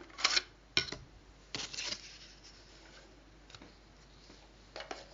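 A few faint, short rustles and clicks of handling noise, spread out with quiet gaps between them.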